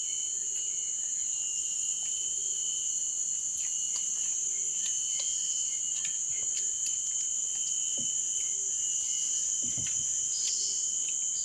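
Steady chorus of insects, several high droning tones held without a break, with a few faint clicks.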